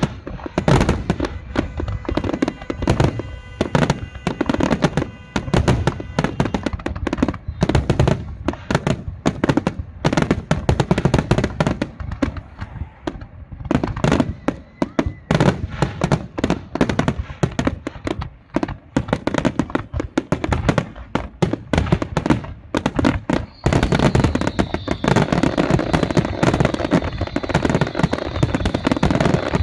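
Fireworks going off in a rapid, dense run of bangs and crackles, thickening into an almost continuous barrage for the last several seconds.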